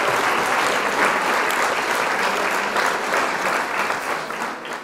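Applause, many hands clapping densely, fading out near the end.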